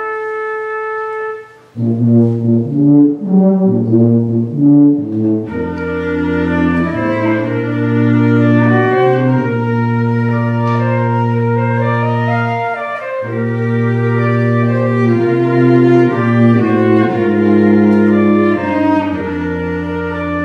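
Flute, cello and tuba trio playing a chamber piece: long held low notes under moving lines above, after a short break just under two seconds in.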